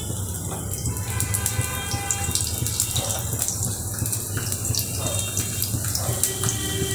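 Garlic cloves sizzling and crackling in hot oil in a small tempering pan: the garlic frying for a tadka.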